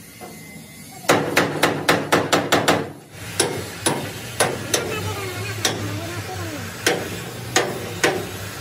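Hammer blows on a steel excavator cabin frame: a quick run of about nine sharp strikes, then a pause and slower single strikes about every half second. The frame is being beaten back into shape while a spot is heated with a gas torch.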